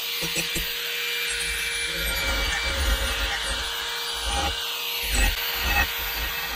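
4-inch angle grinder running under load against the end of a steel pipe: a steady motor whine over a harsh grinding hiss, the grinding note sagging in pitch about four seconds in. The grinder is shaping a curved radius into the pipe end so it sits flush on another pipe for welding.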